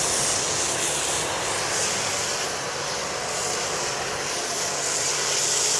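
Pressure-washer foam cannon spraying snow foam onto a car body: a steady hissing spray, with a low steady hum underneath.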